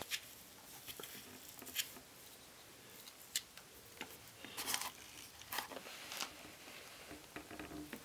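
Faint, irregular clicks and scratches of fingers working a block of foam and cork into the gap between a Bafang mid-drive motor and the bike frame.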